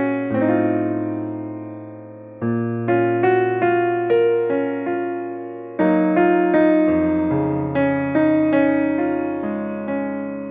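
Background piano music: a slow, gentle melody over held bass notes, each note struck and fading away.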